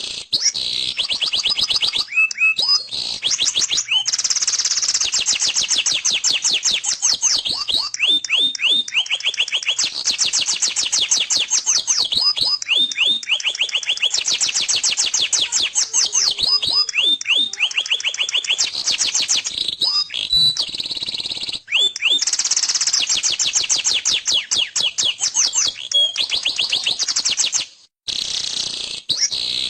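Domestic canary singing a long, loud, continuous song of fast rolling trills, with runs of quick downward-sweeping notes between them and a brief break near the end.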